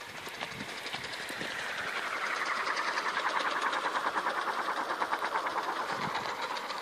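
Alien 600 V2 RC helicopter's main rotor and drive freewheeling down after an autorotation landing: a fast rhythmic whir with a whine that slowly falls in pitch, growing louder as it comes closer.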